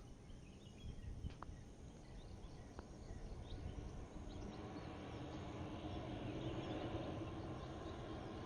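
Distant airliner approaching the runway to land, its engine noise swelling from about halfway in, with a steady low hum. Small birds chirp in the first half.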